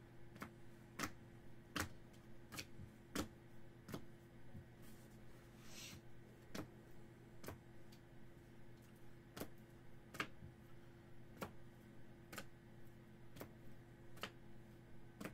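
Light, sharp clicks and taps about once a second, irregularly spaced, from trading cards in hard plastic holders being set down and stacked on a table, with a short rustle about six seconds in. A steady low hum runs underneath.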